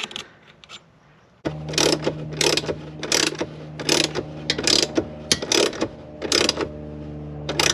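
Ratchet wrench worked in repeated strokes, a sharp clicking stroke a little under a second apart, fastening the short shifter's mounting bolt. A steady hum starts about a second and a half in and runs under the strokes.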